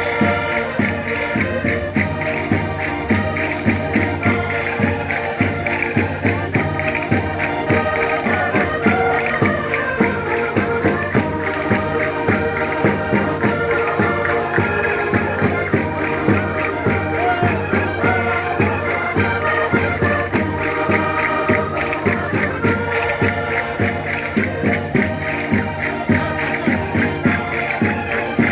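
Portuguese folk music played on concertinas (diatonic button accordions), held chords and a running melody over a steady, even beat from light percussion.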